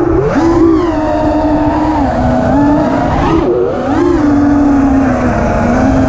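Five-inch FPV freestyle quadcopter's four brushless motors and propellers whining, heard from the onboard camera, the pitch sliding up and down with the throttle. About three and a half seconds in the whine drops briefly and then climbs back.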